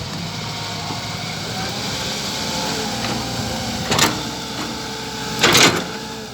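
RC model Hitachi 120 excavator running with a steady mechanical whine from its drive, broken by two sharp knocks about four and five and a half seconds in, the second the longer.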